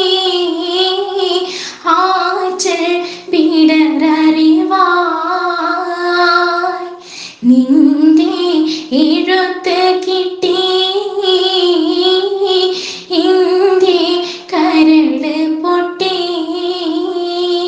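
A woman's voice singing a Malayalam Mappila song, a kathupattu (letter song), in long phrases of held notes that bend and waver, with short breaks between phrases.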